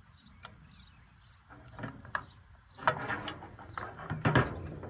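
Plastic stock tank float valve parts being handled and fitted together on a galvanized steel tank: a series of clicks and knocks, few at first and several in quick succession in the second half, as the float is lined up in its housing for the cotter key.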